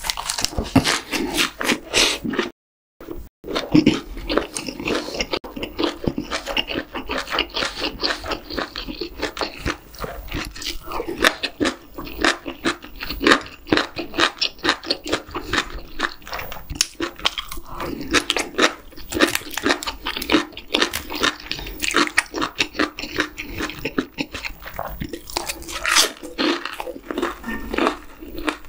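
Close-miked chewing of a big mouthful of lettuce wrap filled with stir-fried webfoot octopus: crisp leafy crunching and wet chewing in quick irregular strokes. The sound cuts out completely for under a second about three seconds in.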